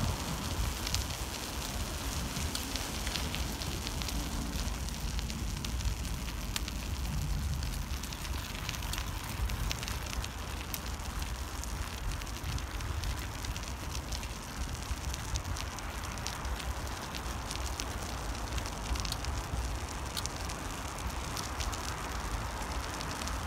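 Steady ride noise while cycling on a cleared, wet asphalt path: wind rumbling on the microphone and tyre noise, with frequent faint crackling clicks.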